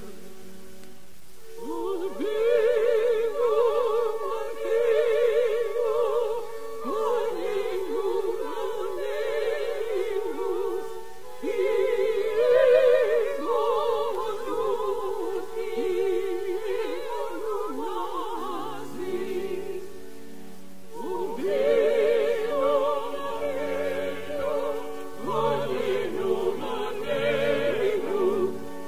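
Male cantor singing a Selichot chant in an operatic style with wide vibrato, in long phrases broken by short pauses. Lower sustained notes join beneath the voice in the last third.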